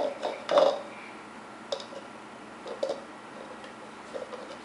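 Cherries dropping from a plastic bag into a plastic blender cup: a few separate knocks and clicks, the loudest about half a second in.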